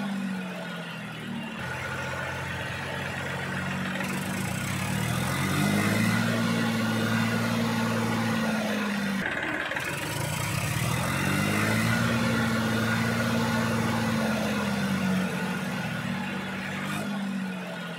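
Small motor of a homemade toy tractor running as it pushes sand with its front blade, its pitch climbing and then sinking twice as the load changes.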